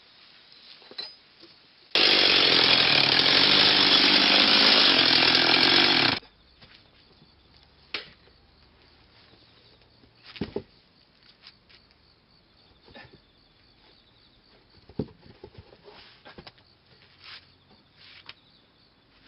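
A power saw runs loudly and steadily for about four seconds, cutting off suddenly, followed by scattered light knocks and clicks.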